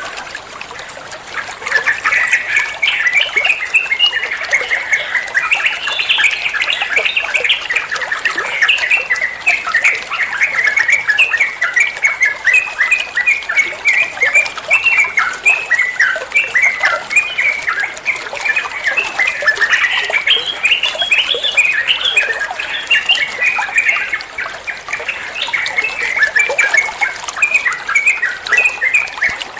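Sooty-headed bulbul (trucuan) singing a fast chattering song of many short notes, nearly without break, with brief lulls about a second in and around 24 seconds.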